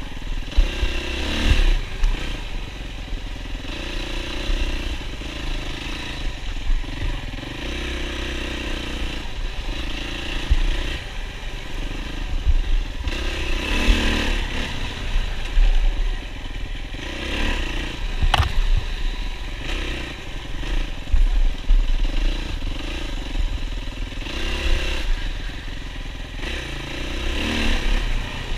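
Yamaha WR450F dirt bike's single-cylinder four-stroke engine revving up and down again and again as the rider accelerates through the course, with clatter and low thumps from the bike over rough ground. A sharp knock comes about 18 seconds in.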